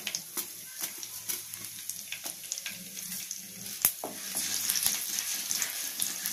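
Mustard and cumin seeds frying in hot oil in a pan for a tempering: a steady sizzle with many sharp pops as the mustard seeds start to splutter, one louder pop a little before four seconds in, and the sizzle growing louder after that.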